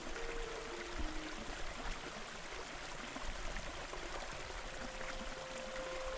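Steady rushing of flowing water, an even continuous hiss with no breaks.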